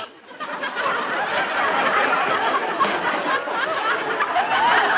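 Sitcom audience laughter, many people laughing together. It swells up a fraction of a second in and stays at a steady level.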